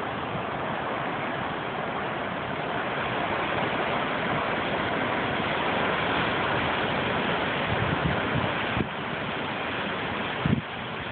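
Seaside ambience: a steady rushing noise of wind and surf, swelling slightly midway, with a few short low bumps near the end.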